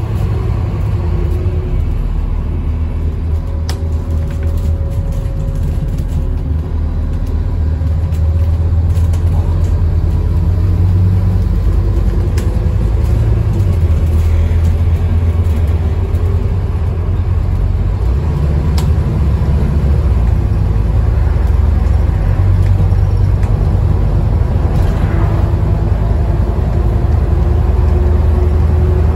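Scania DC9 five-cylinder diesel of an Alexander Dennis Enviro 400 double-decker bus pulling along the road, heard inside the upper deck as a steady low engine drone mixed with road noise. It grows louder about eight seconds in and holds there, with a few brief clicks from the cabin.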